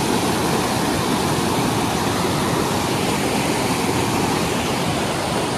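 Mountain river rapids: white water rushing steadily over and between large boulders.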